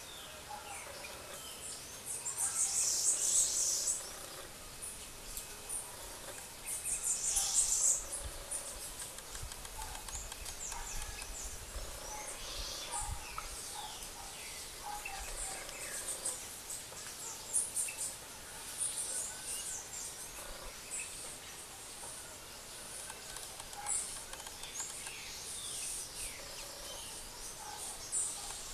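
Outdoor ambience with small birds chirping, short high calls scattered throughout, and two louder high hissing bursts of a second or two about two and seven seconds in.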